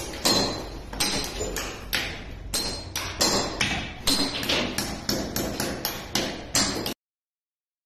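Claw hammer tapping a bare concrete floor in a quick run of sharp knocks, about two or three a second, each with a short ring. The tapping cuts off suddenly near the end.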